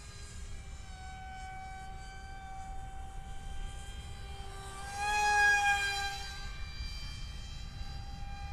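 Electric motor and small cut-down propeller of a foam RC F-22 Raptor jet in flight, making a steady high whine. About five seconds in, the whine grows louder for a second or so, rising and then falling in pitch, before settling back. Wind rumbles on the microphone underneath.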